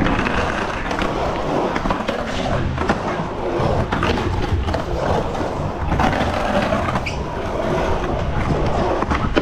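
Skateboard wheels rolling on a concrete bowl, a continuous rumble as the rider carves the walls, with a few brief knocks of the board.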